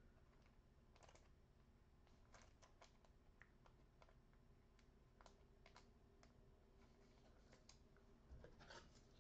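Near silence: room tone with faint, scattered clicks and a soft rustle a little before the end.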